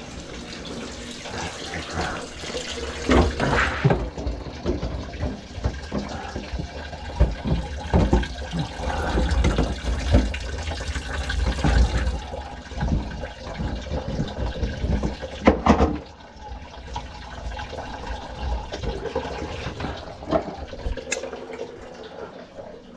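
Dirty water from a grease-clogged kitchen sink drain pouring and splashing into a bucket under the sink, with knocks and clunks of pipes and bucket being handled. One loud clatter comes about two-thirds of the way through.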